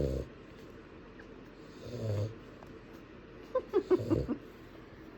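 Newborn puppies grunting softly, then a quick run of high squeaks about three and a half seconds in.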